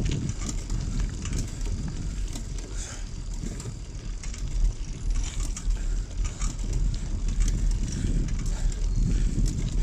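Bicycle coasting downhill, its freewheel hub ticking with a steady clicking, over a continuous low rumble of wind and tyres on the road.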